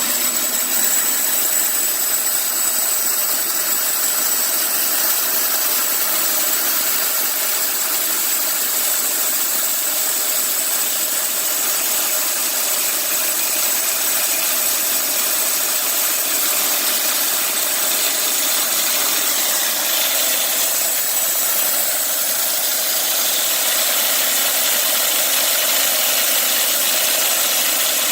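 Homemade bandsaw mill running steadily, a loud even machine noise. A faint high whine in the first few seconds fades out.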